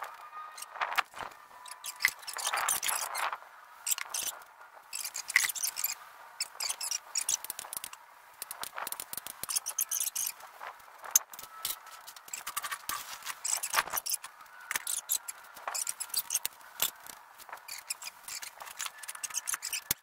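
Greenlee hydraulic pipe bender being pumped by hand: the pump handle and linkage squeak and click with each stroke, with scattered sharp metal taps and creaks as the pipe is put under load.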